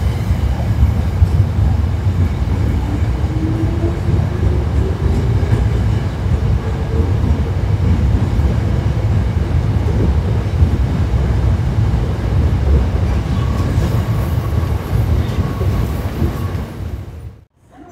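Hankyu electric train running along the platform: a steady low rumble of wheels on rail with a motor whine that rises in pitch as it picks up speed. The sound cuts off suddenly near the end.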